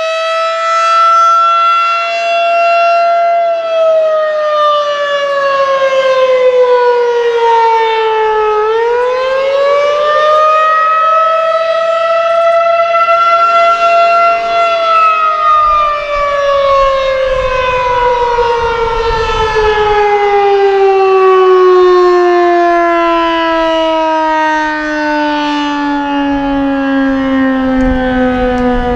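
Federal Signal 2001-SRN outdoor warning siren sounding a wailing signal, typical of the Attack signal. Its tone falls for a few seconds, climbs back and holds, then sinks in a long, slow glide as the siren winds down.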